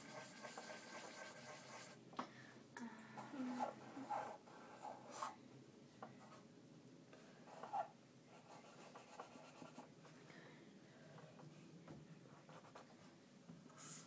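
Faint scratching of a pen or pencil on paper as someone draws.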